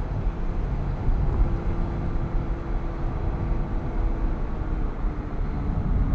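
Porsche 987.1 Cayman S's 3.4-litre flat-six running at a steady cruise over a low road rumble; the engine note falls slightly about five seconds in.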